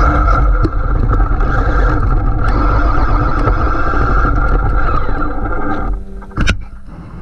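Traxxas MAXX RC monster truck driving: its brushless electric motor whines steadily over tyre and drivetrain rumble, then eases off about six seconds in, followed by a sharp knock.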